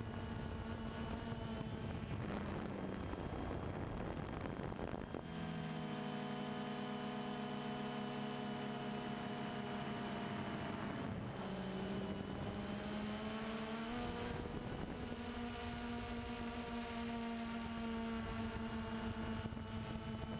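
Camera drone's electric motors and propellers whining steadily in a chord of several tones. The pitch shifts about five seconds in, dips around eleven seconds and climbs back a few seconds later as the motors change speed.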